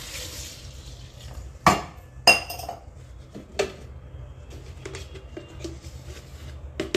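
Kitchen handling sounds: milk finishes pouring into a plastic blender jar, then a steel tumbler clinks sharply twice against a hard surface, the second clink ringing. Lighter knocks and clicks follow as a plastic jar is picked up and handled.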